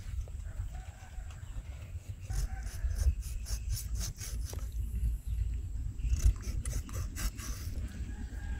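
Steel cleaver scraping along a catfish's skin on a wooden chopping board, in groups of quick rasping strokes starting about two seconds in, over a low rumble.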